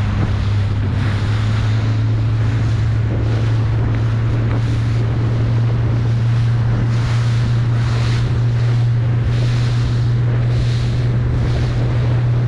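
Steady low hum of a motorboat engine under wind buffeting on the microphone, with choppy water hissing and splashing against the hull in repeated swells about once a second.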